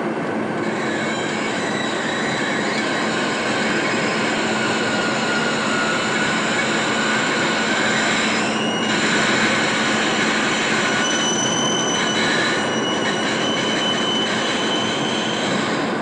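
Steady, heavy mechanical noise of metal machinery running, with high squealing tones held over it that come and go, strongest in the second half.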